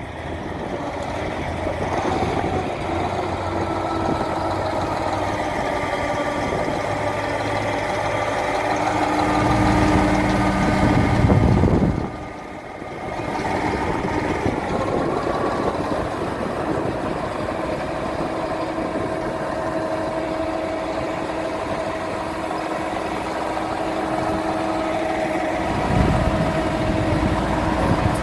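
Motor vehicle engine running steadily, with a louder low rumble about ten seconds in and again near the end, and a brief drop in level around twelve seconds in.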